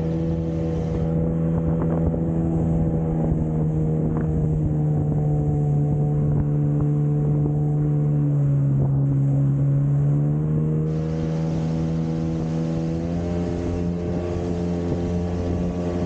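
Jet ski engine running at speed, a steady drone over the rush of water and spray. The engine pitch sags a little about halfway through, then climbs again near the end.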